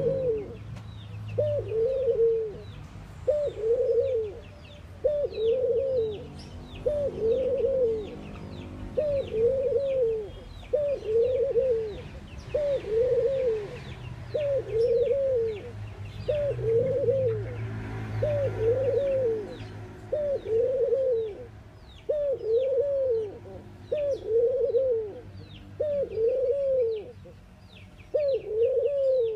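A caged collared dove cooing over and over, one arched coo about every one and a half to two seconds, with faint high chirps in the background.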